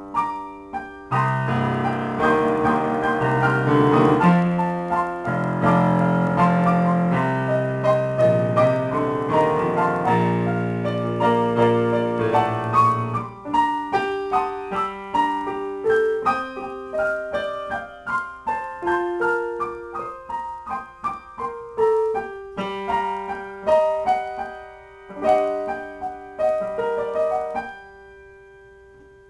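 Yamaha digital piano played solo as an improvisation. Full chords over low bass notes for about the first half, then a sparser melody higher up, ending on a note left to die away.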